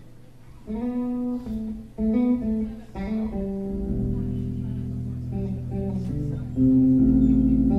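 Solo electric bass guitar being played: after a soft opening, plucked notes and double-stops come in under a second in, then low notes ring on and overlap, growing louder near the end.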